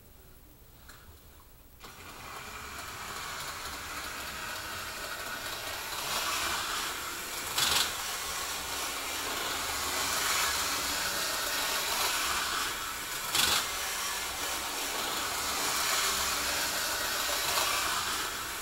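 HO-scale model locomotive running around the track oval: a steady motor and wheel hum that starts about two seconds in and grows louder, with two sharp clicks about six seconds apart.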